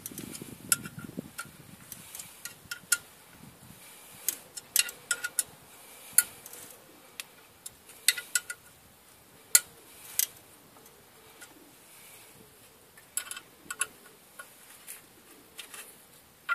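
Hand ratchet clicking in short, irregular runs of sharp metallic clicks as the clutch pressure plate bolts are tightened.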